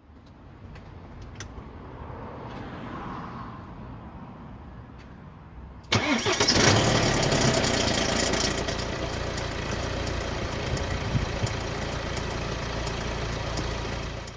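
BMW 120d's N47 four-cylinder diesel engine started about six seconds in and left idling, with a chain rattle on start-up from a stretched lower timing chain and worn guides that leave the tensioner at full extension until it gets oil pressure. After a few seconds of quieter steady background sound, the start comes on suddenly and loudly.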